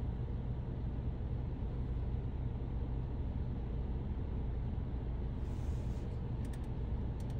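Steady low hum inside a stationary car's cabin, with a few faint ticks near the end.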